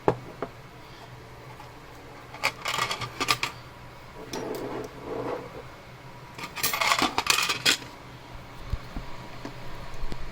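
Small metal objects clinking and rattling as they are handled, in two bursts of clinks about 3 and 7 seconds in, with a softer rustle between.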